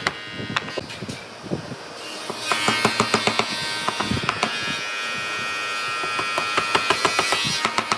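A small electric power tool running with a steady, high buzz that starts about two and a half seconds in, over a scatter of short knocks and taps on wood.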